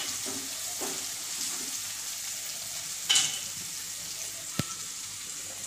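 Onion, green chillies and turmeric sizzling steadily in hot oil in a pan while a spatula stirs them. There are two short clicks, about three seconds in and again about a second and a half later.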